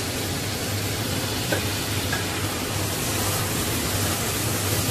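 Onion and tomato masala simmering in water in a pan over a low gas flame: a steady sizzling hiss with a low steady hum underneath and a couple of faint ticks.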